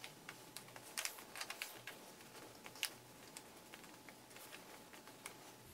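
Faint crinkles and small clicks of a sheet of paper being handled and creased by hand, in short irregular bursts.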